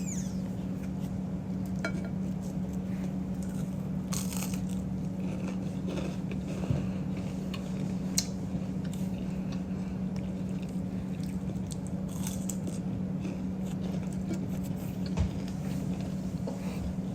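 Scattered light clinks and clicks of dishes and utensils in a kitchen, over a steady low hum.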